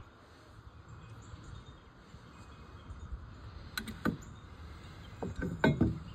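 Copper pipe and fittings clinking and knocking as the soldered assembly is handled and set down on a wooden board: two sharp clicks about four seconds in, then a short cluster of knocks near the end, over faint background noise.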